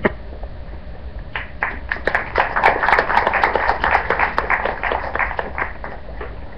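Audience applauding: scattered claps start about a second in, build into steady applause, then die away near the end. A single sharp knock is heard at the very start.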